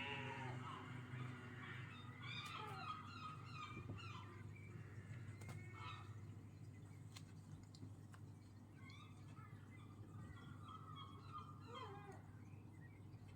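Gulls calling faintly: a string of short squawking and mewing calls, some falling in pitch, scattered through, over a steady low hum.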